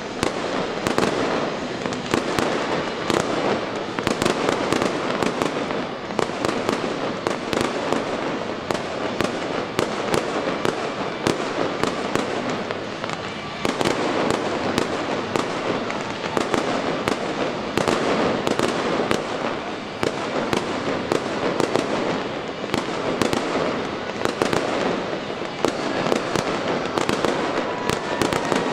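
Fireworks display at close range: a continuous barrage of bangs and crackles, several a second, over a dense rumble of launches and bursts, without a pause.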